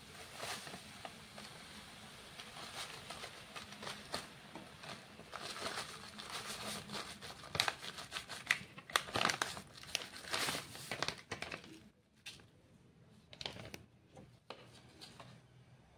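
Plastic sachet crinkling as powder is shaken out of it, then a few scattered clicks of a whisk in a steel pot near the end.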